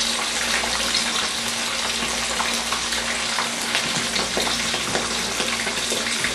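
Red snapper pieces shallow-frying in hot oil in a wok: a steady sizzle with many small scattered crackles and pops.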